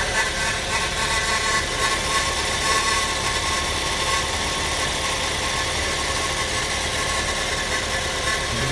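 Ford Focus II engine idling with the unpleasant extraneous noise that sets in after it has run for about a minute. Steady high tones ride over the engine's run and weaken after about three seconds.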